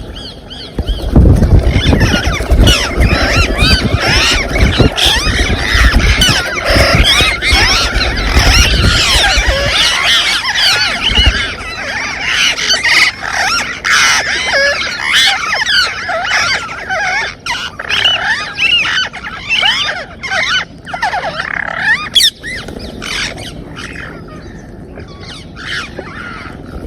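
Parrots screeching and chattering, many rapid gliding calls overlapping, with a low rumbling for roughly the first ten seconds.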